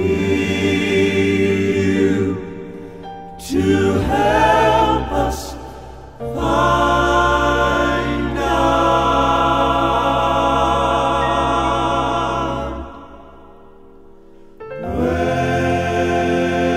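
Southern gospel male quartet (tenor, lead, baritone, bass) singing slow, long-held chords in close harmony with vibrato, with accompaniment. The chords fade down briefly a few seconds in and again near the end, then swell back.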